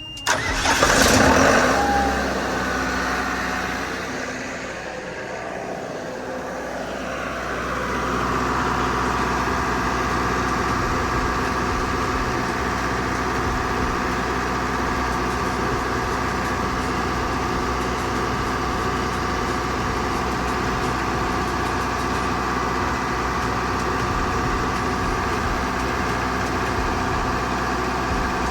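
An engine running steadily at an even speed, after a loud, noisy burst about a second in.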